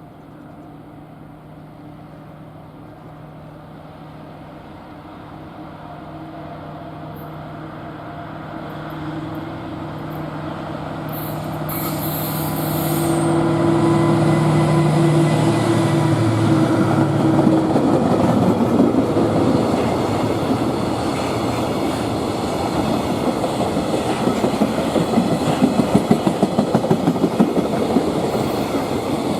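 A freight train passing at speed. The locomotive's steady hum grows louder as it approaches and drops in pitch as it goes by about halfway through. It is followed by the loud rumble of the wagons, with a rhythmic clickety-clack of wheels over rail joints toward the end.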